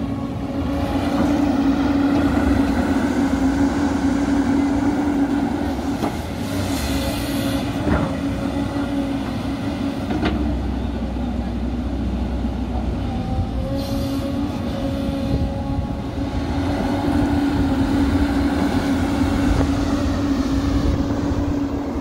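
JCB tracked excavator's diesel engine and hydraulics running steadily with a droning whine as it digs and lifts sand. The drone swells louder twice, near the start and again near the end, with a couple of sharp knocks around the middle.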